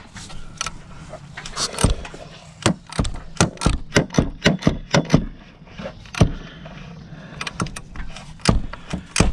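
Socket wrench with an extension clicking and clinking against metal as it is fitted to and worked on a plastic oil filter housing cap: irregular sharp clicks in quick runs.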